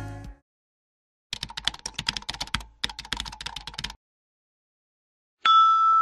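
Keyboard-typing sound effect: two quick runs of rapid key clicks, each over a second long, with a short pause between them. Near the end a louder single ding rings out and holds.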